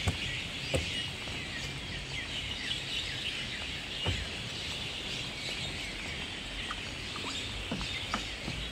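Small birds chirping continuously in many overlapping short calls. A few soft knocks come from a child's steps on the playground climbing stairs, the clearest under a second in, about four seconds in and near the end.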